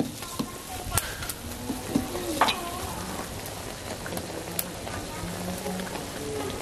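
Sugar syrup boiled to one-thread consistency, bubbling in the pan with a steady sizzling hiss. A few sharp clicks sound over it in the first few seconds.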